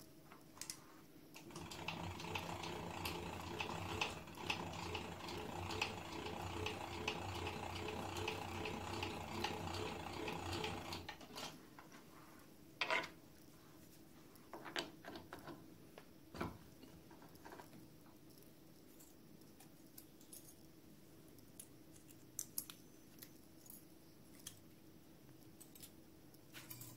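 Milling machine spindle running steadily with an end mill in a cast-iron flywheel, then stopping sharply about eleven seconds in. Afterwards, scattered clicks and knocks of hands and a chuck key working the rotary table's chuck.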